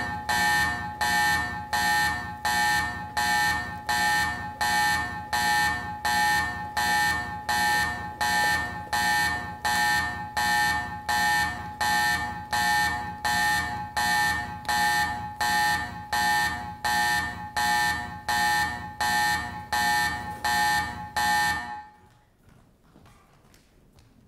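An electronic alarm sounding in loud, evenly repeated pulses, about two a second, that cuts off suddenly near the end.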